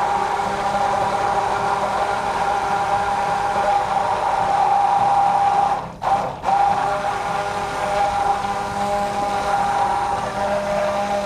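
Hand-held SilverCrest stick blender running steadily in a tall beaker of milk and oil, emulsifying a milk mayonnaise. The motor whine stops for a moment twice about six seconds in, then runs on, dropping slightly in pitch near the end.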